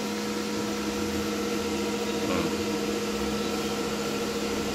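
Two cooling fans in a powered electrical cabinet running steadily, a continuous whirr with a steady low hum under it.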